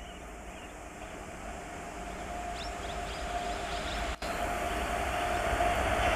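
WAP7 electric locomotive approaching at speed with its steady high whine, growing steadily louder over a low rumble from the train.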